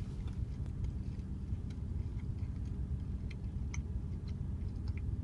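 A man chewing a mouthful of pizza with his mouth closed, with soft irregular mouth clicks, over a steady low rumble in the car's cabin.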